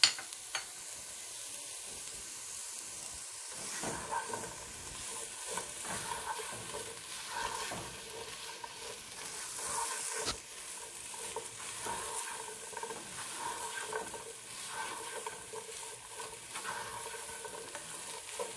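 Chicken strips and sliced vegetables (green onions, capsicum, carrot) sizzling as they stir-fry in a pot, with a black slotted spoon scraping and tossing them against the pot from about four seconds in.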